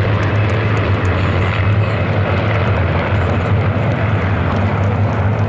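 Massed formation of Spitfire and Hurricane fighters passing overhead, their piston engines blending into one steady, loud drone.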